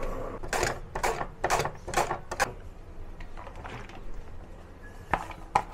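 Food being handled in the kitchen: a quick run of short scraping, rustling strokes, about six in the first two and a half seconds, then softer handling noise and two more sharp strokes near the end.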